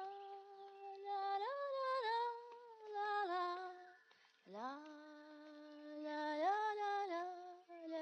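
A single voice humming a slow tune in two long phrases, each with long held notes that slide up in pitch partway through and then step back down.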